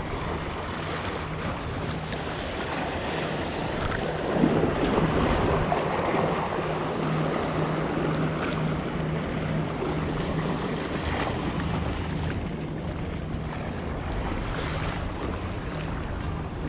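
Sea waves washing against the rocks of a jetty, with wind on the microphone. The water gets louder about four and a half seconds in. A low hum pulses underneath.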